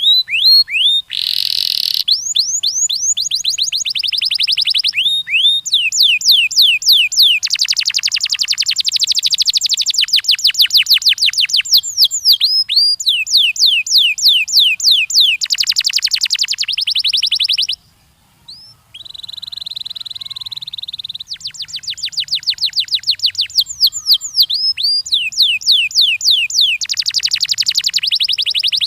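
Domestic canary singing a long, loud song made of fast trills: each trill is one short sweeping note repeated many times in quick succession, and the trills change from one to the next. About two-thirds of the way through the song breaks off briefly and then comes back as a held buzzy note before the rapid trills resume.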